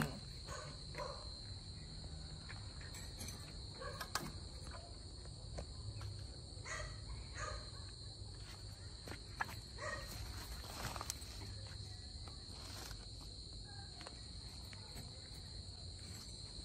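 Steady, high-pitched trilling of crickets and other night insects, with a few faint clicks scattered through.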